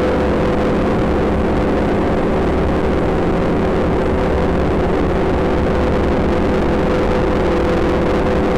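Elektron Digitone FM synthesizer playing a dense noise drone: steady held tones over a rough, grainy low rumble and hiss, with a slight shift in the lower tones near the end.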